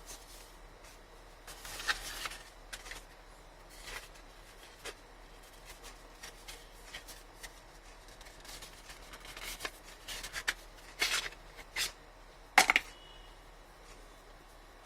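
Hands handling a smartphone and its packaging: scattered rustles, taps and clicks, with the sharpest click late on.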